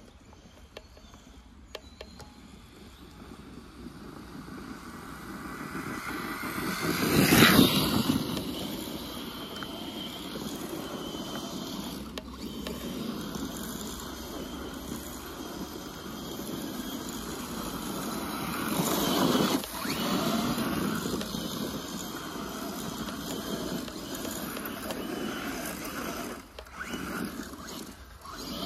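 Small off-road vehicle driving over a rough forest trail: a rattling, rolling noise with no clear engine note. It swells loudly twice, about a quarter of the way in and again about two-thirds through, with a few knocks.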